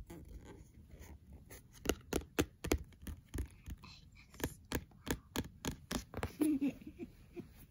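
Irregular sharp taps and clicks, a few a second, as fingers handle the glossy cardboard pages of a board book, with a brief murmur of a child's voice near the end.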